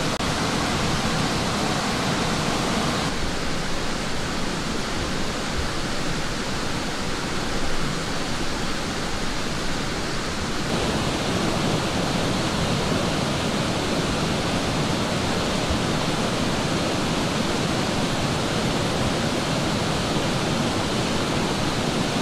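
A river rushing steadily. Its tone shifts slightly twice, about three and eleven seconds in.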